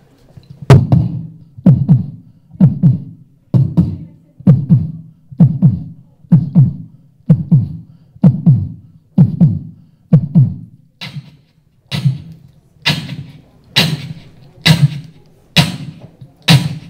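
Beatboxing into a handheld microphone: a slow, even beat of deep kick sounds about once a second with lighter hits between. About two-thirds of the way through, sharp snare sounds are added on the off-beats.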